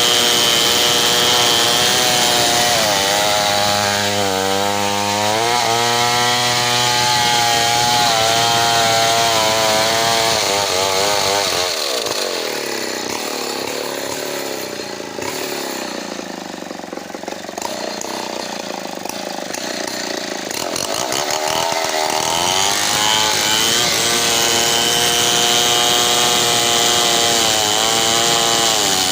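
Large two-stroke chainsaw running at high revs, cutting through a big hardwood log, its pitch wavering under load. About twelve seconds in the engine note falls away and the sound drops as the saw slows, then it climbs back to full speed some ten seconds later.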